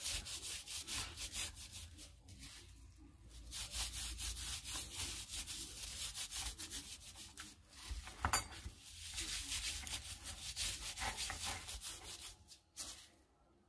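Hands rubbing a dry seasoning and marinade mix into a slab of pork belly: runs of quick scraping rubs with short pauses, and a brief clink about eight seconds in.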